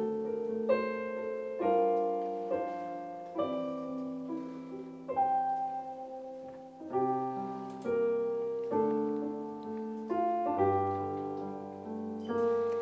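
Piano playing the introduction to a worship song: chords struck about once a second, each ringing and fading before the next.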